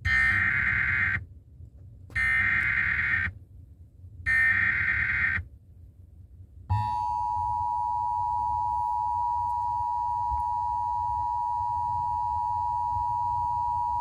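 Emergency Alert System tones from an FM broadcast, heard through a car radio's speaker: three SAME header data bursts, each about a second long with about a second between them, then after a pause the steady two-tone attention signal from about seven seconds in. They mark the start of an emergency alert, here a severe thunderstorm warning.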